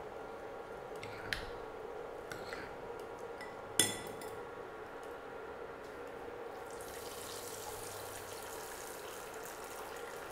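Sweet corn kernels dropped into hot oil in a kadai begin to sizzle about seven seconds in, a rising hiss that carries on. Before that there is only a steady faint hum, a few light clicks, and one sharp ringing knock about four seconds in.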